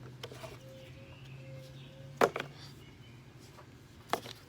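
A few sharp clicks and knocks of lawnmower parts being handled during disassembly: the loudest a little after two seconds in, another near the end. Under them runs a steady low hum.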